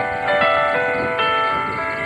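Background music: an instrumental melody of sustained notes, changing a few times a second.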